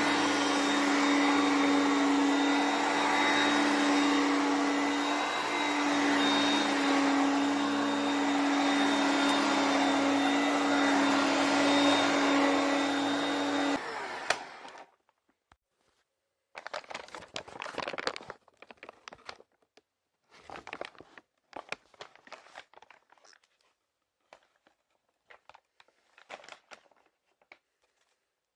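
Hoover Concept One Power Drive vacuum cleaner running steadily with a strong motor hum and hiss, switched off about halfway through and winding down. Then come irregular short bursts of rustling and handling noise.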